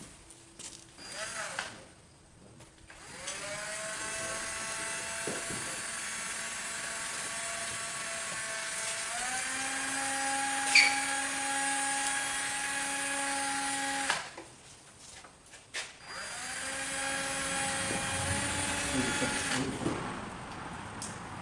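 A heat gun's fan motor spinning up and running with a steady whine, stepping up in pitch partway through. It cuts off, then runs again for a few seconds near the end, as it heat-shrinks model covering film. A sharp click sounds about ten seconds in.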